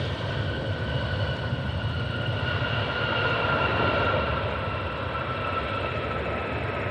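Jet aircraft passing, a steady rumble with a high whine that drifts slowly down in pitch, loudest about four seconds in and then easing.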